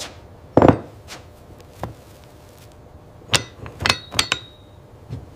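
A heavy knock about half a second in, a light tap, then a quick run of sharp metallic clinks and taps around three to four seconds in, one ringing briefly: a small cast-iron hand press and tools being worked on a wooden bench.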